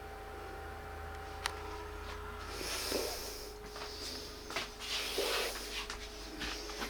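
Optoma UHZ65 projector's cooling fan running with a steady hum and a steady whine from its air vents. A click comes about a second and a half in. From about two and a half seconds on, irregular rustling and scraping handling noises are louder than the hum.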